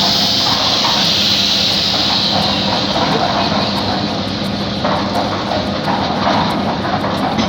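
Electric concrete mixer running: a steady motor hum under a continuous rattling, churning noise.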